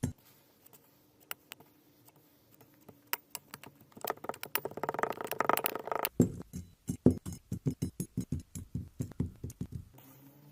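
Kinetic sand being cut and pressed, giving crisp, crunchy ticks. About four seconds in comes a dense crackling stretch lasting roughly two seconds, then a run of regular strokes at about three a second.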